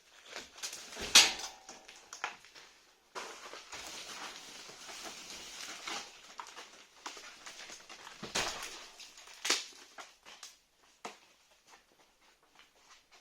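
Knocks and scraping from dismantling a fireplace by hand: a sharp knock about a second in, a few seconds of scraping, then two more knocks.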